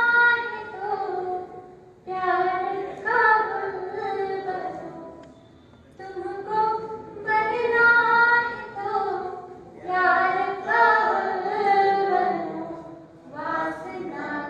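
A woman sings a Hindi poem unaccompanied into a microphone, in melodic phrases of a few seconds each with held notes and short pauses for breath between them.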